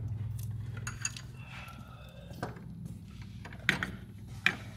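A few scattered light clicks and knocks of a pulley remover tool and wrenches being handled and fitted on a power steering pump pulley, over a steady low hum.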